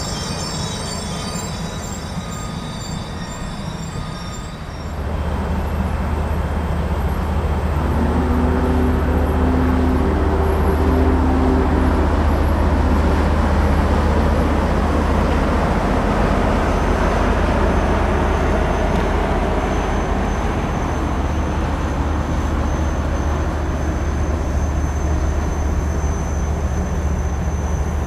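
Passenger train cars rolling past with wheels squealing on the rails, giving way about five seconds in to a louder, heavier rumble of the train with a steady low drone of diesel locomotive engines. A few short low-pitched signal blasts sound about eight to twelve seconds in.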